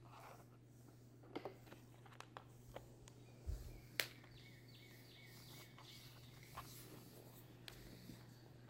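Faint scattered clicks and taps of a plastic cowl cover (rain repellent) being pressed by hand into its groove along the windshield base, with one sharper click about four seconds in, over a steady low hum.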